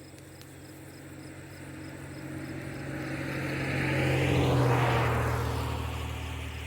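A motor vehicle passing by: its engine and tyre noise swell to a peak about four and a half seconds in, drop in pitch as it goes past, then fade away.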